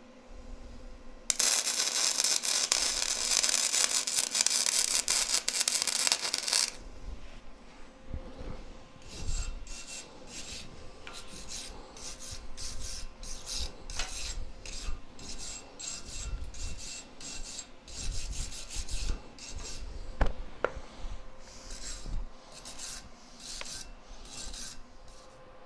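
Flux-core arc welding with a Vulcan MigMax 215 running .035 wire: a loud, steady crackle starting just over a second in and lasting about five seconds. Then a hand wire brush scrubs the fresh weld on the steel in many short, rasping strokes.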